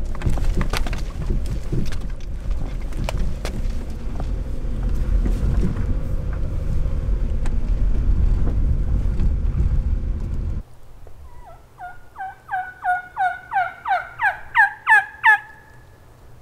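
Inside a Toyota car on the move: a steady low road rumble with scattered clicks and rattles, which cuts off abruptly after about ten seconds. Then a turkey yelping: about a dozen short notes, each sliding down in pitch, growing louder and higher over some four seconds.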